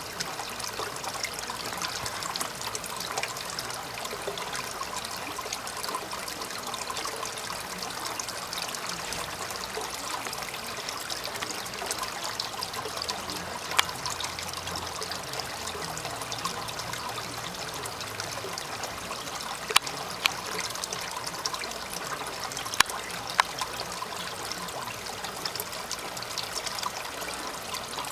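Water trickling and splashing steadily in a small koi holding pond, with a few sharp clicks in the second half.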